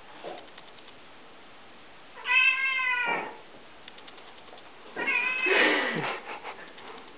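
A long-haired tabby cat meows twice: a clear call of about a second, then a longer, rougher one a couple of seconds later. These are the complaining calls of a cat being teased with hands it cannot get at.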